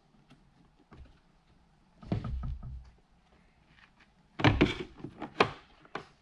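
Hard plastic HVAC box housing parts knocking and clicking as they are handled and fitted together. There is a short clatter about two seconds in and a louder run of sharp clicks and knocks near the end.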